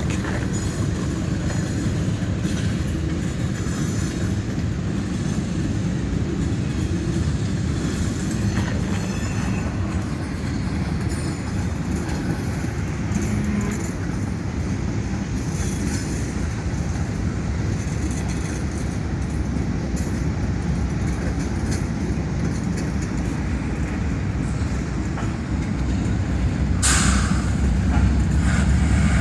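Freight train rolling past: a steady rumble of cars and wheels on the rails with scattered clicks, rising a little near the end. A short, sharp burst of noise comes about 27 seconds in.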